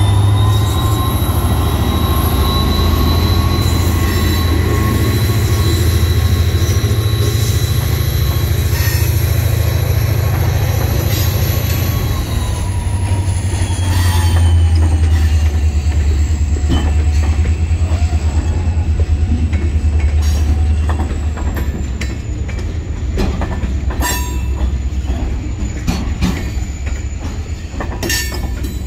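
Freight train of boxcars rolling past behind an SD40-2W diesel locomotive: a steady low rumble with high squealing tones from the wheels, which slide down in pitch about halfway through and fade out. In the second half the wheels click over the rail joints.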